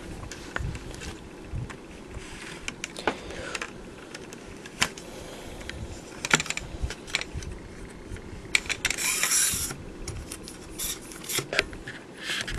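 A 50-inch Taurus tripod being handled as its centre column is raised to full extension: scattered clicks and knocks of its locks and legs, with a short scraping rasp about nine seconds in.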